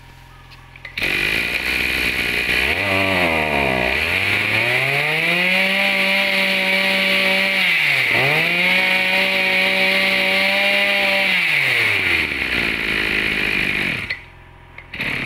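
Maruyama 26 cc single-cylinder two-stroke brush cutter engine on a test run. It starts about a second in, is revved from idle up to full throttle and held there twice, dropping briefly back to idle in between, then winds down and is switched off near the end.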